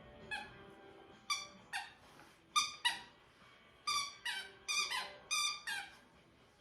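A dog's squeaky toy squeaking about a dozen times in quick bunches as the wolfhound chews it, each squeak short and sliding down in pitch.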